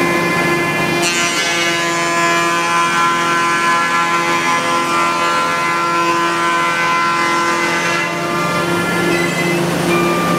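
A 5-axis CNC wood router running, its spindle giving a steady multi-tone whine that shifts in pitch about a second in and again near the end as the machine moves through its cut.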